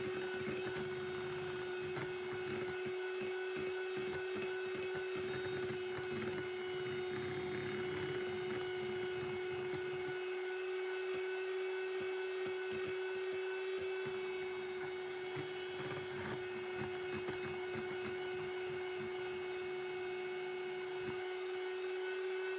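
Electric hand mixer running steadily, its motor giving a constant whine while the beaters churn egg whites into meringue.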